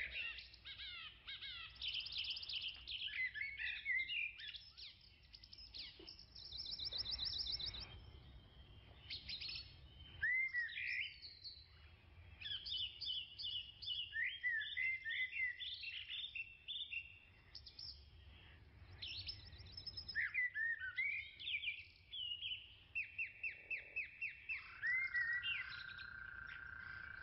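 Several birds chirping and calling: short rising and falling notes, quick trills and runs of rapid repeated notes, with a steady held tone near the end.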